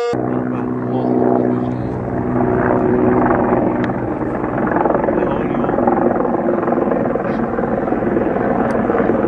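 A loud, steady, rough rumbling noise with a strong low throb, and a few faint steady tones in the first couple of seconds.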